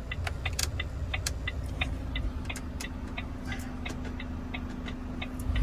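Idling truck engine heard from inside the cab as a steady low rumble with a faint hum, under a light, rapid ticking of about four ticks a second.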